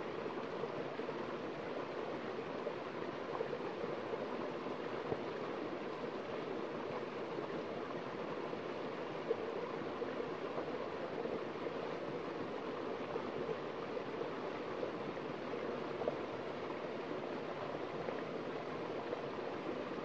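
Small forest stream spilling over a rock ledge in a short cascade into a shallow pool: a steady rushing and splashing of water.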